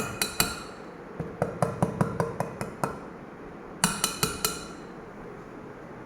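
A gold ring knocking on an imported marble slab: three taps, then a quick run of about ten, then about five more near four seconds in. Each tap is a hard clink with a brief ring.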